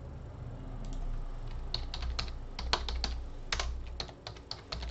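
Typing on a computer keyboard: irregular keystrokes, starting about a second in, as a word is typed.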